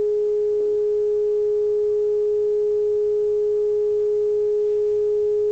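Uniden 2020 transceiver's speaker giving a steady single-pitched tone: the signal generator's test signal being received while the RF preamp output coil is peaked during alignment.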